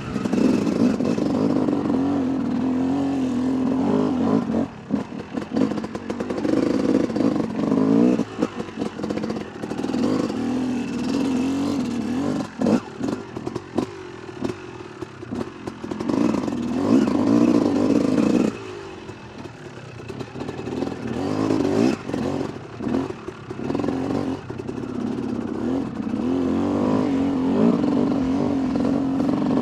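Yamaha YZ250 two-stroke dirt bike engine revving and rolling off again and again as it is ridden over rough farm track, with clatter from the bike over the ground. The throttle shuts off sharply about two-thirds of the way through, then the engine picks up again.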